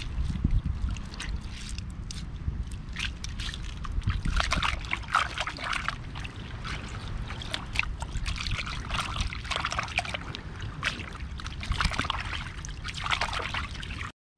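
Wet squelching, sloshing and squishing of hands kneading a raw octopus with salt to strip its slime, in irregular clusters over a steady low rumble.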